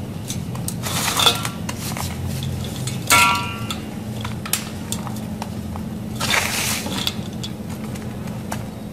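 Dry, gritty sand blocks crushed and crumbled by hand in a glass bowl: a run of small crackles and crunches, with louder crunches about a second and three seconds in, the second with a brief ring from the glass. A longer rush of crumbling grit comes around six to seven seconds in.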